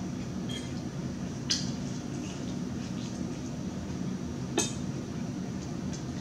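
Metal fork clinking and scraping on a ceramic plate as salad is picked up, with two sharp clinks about a second and a half in and again about three seconds later, over a steady low hum.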